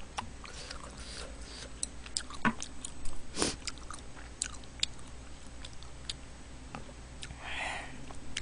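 Close-miked eating: chewing and mouth sounds, with scattered sharp clicks and taps from chopsticks against the dishes, the loudest about two and a half and three and a half seconds in.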